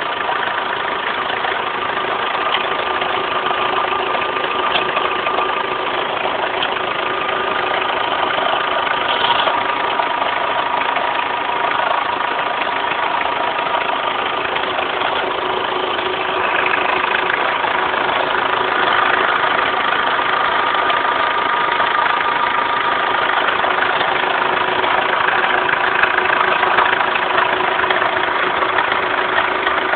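Renault Laguna 1.9 dCi four-cylinder turbodiesel engine idling steadily, with steady high tones running through its noise: the weird sound its owner is trying to trace. It grows slightly louder about halfway through.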